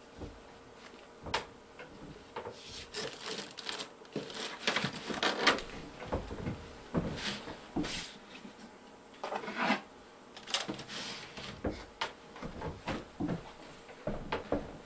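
Clutter being cleared off a wooden desk: an irregular run of knocks, clatters and scraping rubs as objects are picked up, slid across the desktop and set down, busiest through the middle.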